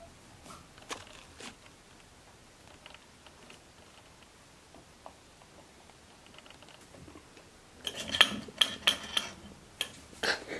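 Guinea pigs making a quick run of sharp clicks and taps, near the end, as they move about on a wooden log platform. A few faint ticks come before it.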